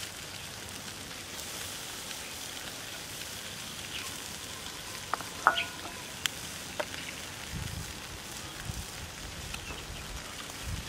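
Pig head roasting on a wire grill over charcoal, with a steady sizzling and crackling hiss from the glazed meat and coals. A few sharp clicks come around the middle, and soft low knocks near the end.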